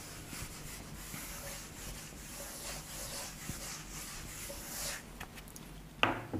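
Whiteboard duster wiping a whiteboard in repeated scrubbing strokes for about five seconds, then a single sharp tap about six seconds in.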